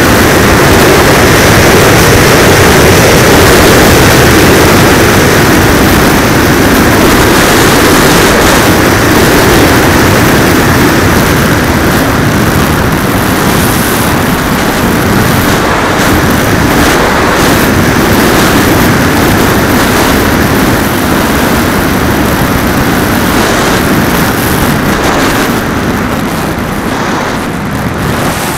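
Loud, steady rush of wind and flight noise picked up by the onboard camera of an FVK Rival RC model aircraft in flight, easing off a little near the end as it comes down low.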